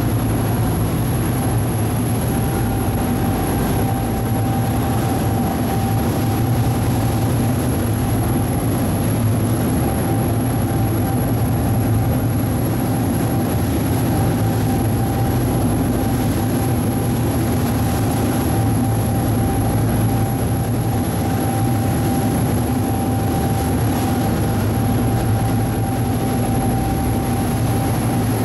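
A passenger boat's engine running steadily on board, a constant low drone with a steady whine above it.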